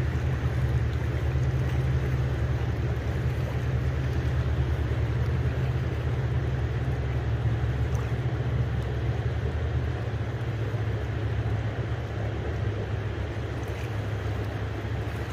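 Jet boat engine running with a steady low drone while towing logs on the river, slowly growing fainter toward the end.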